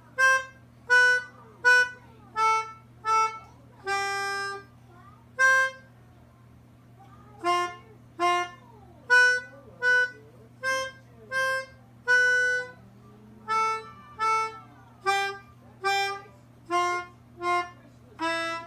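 A small free-reed instrument of the harmonica or melodica kind, played one note at a time in a slow, simple nursery-tune melody. Each short note is followed by a gap, and a longer held note closes each phrase.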